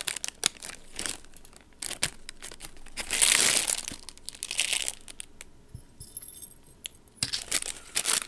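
Jewelry packaging being handled and opened by hand, crinkling and rustling in irregular bursts with small clicks, loudest a few seconds in, as a pendant and earrings are taken out.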